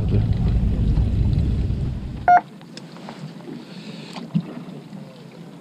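Fishing boat's engine running with a low rumble that cuts off abruptly about two and a half seconds in, with a short beep as it stops; afterwards only faint water and wind.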